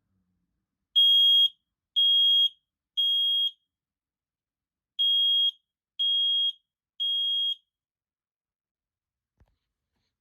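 Smoke alarm sounding on test: two rounds of three loud, high-pitched beeps, each about half a second long, with a pause between rounds. This is the temporal-three pattern that signals smoke or fire.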